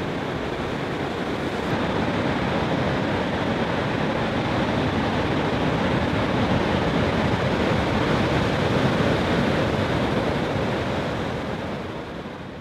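Breaking ocean surf: a steady, even rush of waves that fades out near the end.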